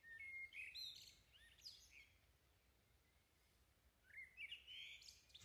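Faint birds chirping, in two short bursts of quick, high twittering calls: one in the first second and another near the end.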